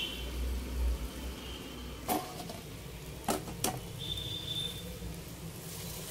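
Metal wire spider strainer clinking against the frying pan and a plate as a fried chicken wing is lifted out and set down: three sharp clicks, the last two close together.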